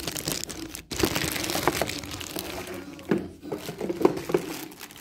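Packaging crinkling and rustling as it is handled and pulled open, with a brief pause about a second in.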